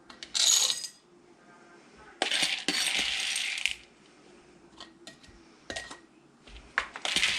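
Dry beans poured from a measuring cup into glass canning jars, a rattling hiss of hard beans hitting glass. It comes in three pours: a short one at the start, a longer one of about a second and a half in the middle, and another near the end, with a few sharp clinks between.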